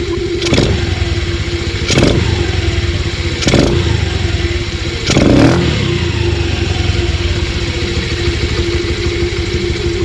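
Honda Dio 110 scooter's single-cylinder engine idling with no air filter fitted, its throttle blipped four times in the first half, the revs falling back to idle after each blip.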